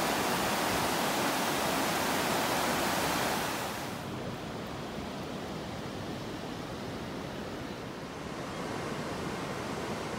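River water rushing over a low weir, a steady loud rush. About four seconds in it gives way abruptly to a softer, duller steady hiss.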